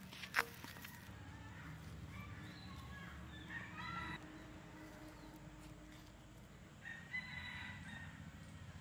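Faint rooster crowing twice: a long call about two seconds in and a shorter one about seven seconds in. At the very start comes a brief scrape of fingers on the metal wok.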